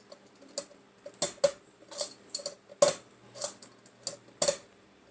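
Hunter Discovery ceiling fan running at medium speed: a faint steady motor hum with sharp clicks or ticks about every half second.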